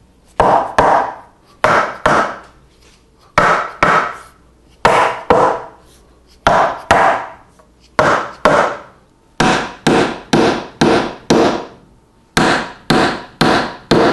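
Mallet blows on a solid ash workbench frame, knocking the mortise-and-tenon joints of the stretchers and legs home. The sharp, ringing wooden knocks come mostly in pairs about half a second apart, with a quicker run of six near the two-thirds mark.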